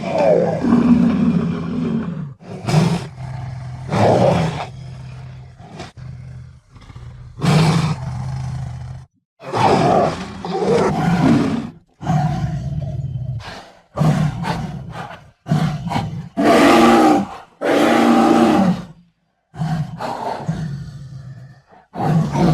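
Jaguar roars and growls: about a dozen separate calls of one to two seconds each, with short silences between them.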